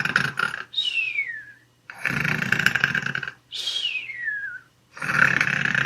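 Cartoon-style snoring for a sleeping otter: a rasping snore followed by a whistle that falls in pitch, repeating about every three seconds, with three snores and two whistles.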